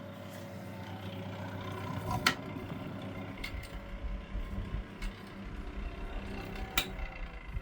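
A restored 1970s Pifco Spinair desk fan's motor running with a steady hum and a rough, rattling rumble, sounding unhappy and worn. There are two sharp clicks, one about two seconds in and one near the end; after the second click the hum's pitch starts to fall.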